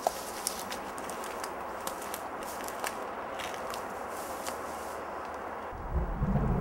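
Footsteps on a forest floor of dry pine needles and twigs, with small scattered crackles and snaps over a steady hiss. Near the end a loud low rumble starts.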